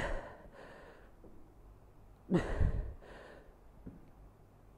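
A man breathing hard while doing dumbbell reverse lunges: a forceful exhale falling in pitch right at the start and another about two and a half seconds in, with quieter breaths between.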